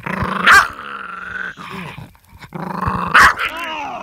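Mini Foxy terrier growling aggressively while guarding a bone. The growling comes in two bouts, each rising to a sharp, loud snarl, as a warning against anyone touching the bone.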